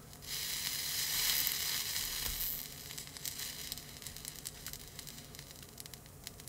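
Solder sizzling under a soldering iron tip at a bus bar joint on 18650 battery cells as flux-core solder wire melts in. The sizzle is strong for about two and a half seconds, then dies down to faint crackles.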